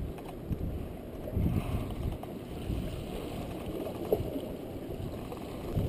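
Wind buffeting the camera microphone: a low, uneven rumble that swells and dips in gusts.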